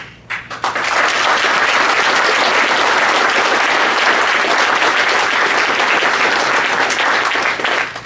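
Audience applauding: dense clapping that starts about half a second in, holds steady and loud, and breaks off just before the end.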